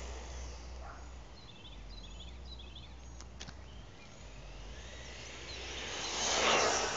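A 1/10 scale ExceedRC buggy with a Turnigy 8.5-turn 4-pole brushless motor passing at speed, its noise swelling to a peak and fading near the end. Before it comes a quieter stretch with faint bird chirps and two small clicks.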